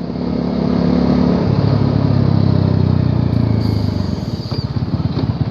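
Bajaj Dominar 400's single-cylinder engine running through its exhaust. The pitch settles lower about a second and a half in, and near the end there is a clear, even run of exhaust pulses.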